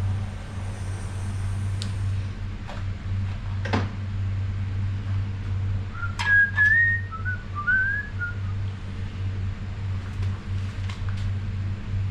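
Hand tools working a rusted fitting on a Ford AOD transmission: a few sharp metal clicks, and a cluster of short, high chirping squeaks about six to eight seconds in, over a steady low hum.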